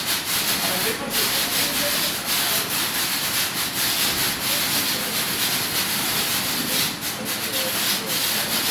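Steady machinery noise of a cherry packing line, its conveyor belts and singulator running with cherries on them, heard as a dense, even hiss without a clear rhythm.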